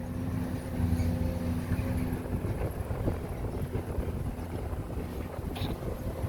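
Engine running steadily with a low rumble and a hum that fades out about two and a half seconds in, with wind noise on the microphone.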